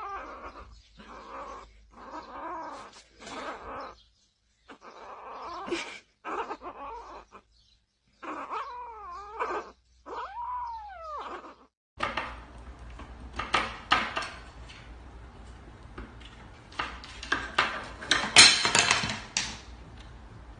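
A kitten crying with repeated short meows, several of them bending up and down in pitch. About twelve seconds in the sound changes to a noisier stretch of clicks and knocks, with the loudest burst near the end.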